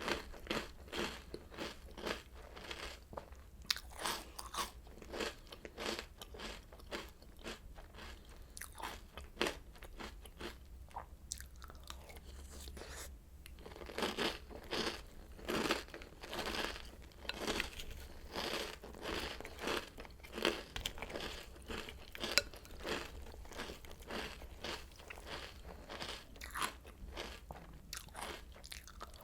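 Close-up chewing of crunchy Oreo O's cereal: crisp, irregular crunches several times a second, on and on, with a steady low hum underneath.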